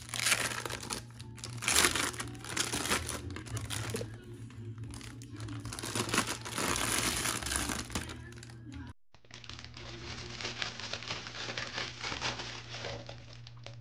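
Clear plastic wrap crinkling and rustling in irregular bursts as it is pulled off a camera dome port by hand. The sound drops out abruptly for a moment about nine seconds in, then carries on more softly.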